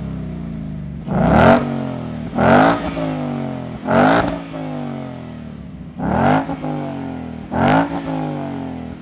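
Ford Mustang GT's V8 idling through a Ford Performance by Borla Touring axle-back exhaust and revved five times, each blip of the throttle rising quickly and falling back to idle. The tone is aggressive but not over the top, noticeably louder than stock.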